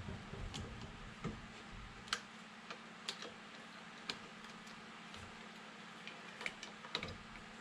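Bench vise being backed off by hand: light, irregular metallic clicks and ticks, about one or two a second, over a steady low hum.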